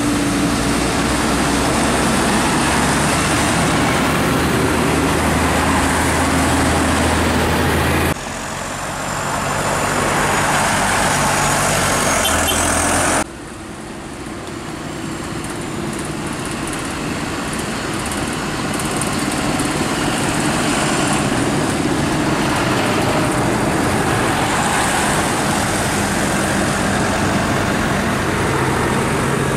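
Diesel farm tractors (a New Holland, a Massey Ferguson and a John Deere) driving past one after another, engines running steadily with tyre noise on the road. The sound changes abruptly twice in the first half, and cars are heard following the tractors near the end.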